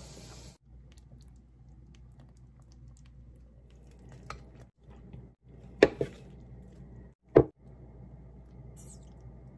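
Food being served onto a plate: soft wet squishes and small clicks of noodles and pig's feet handled with a spoon and spatula, and two sharp knocks of a utensil against the plate or pot, a second and a half apart past the middle, the loudest sounds.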